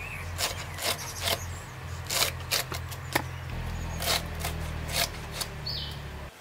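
Knife cutting and scraping in hand food preparation: irregular sharp clicks and knocks about once or twice a second, over a low steady hum that cuts off suddenly at the end.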